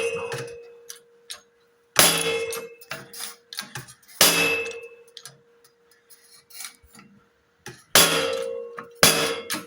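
Hammer blows on the steel seatpost puller under tension, four sharp clangs each leaving a ringing tone: two about two seconds apart, then two close together near the end. The blows are meant to shock the seized seatpost loose in the frame.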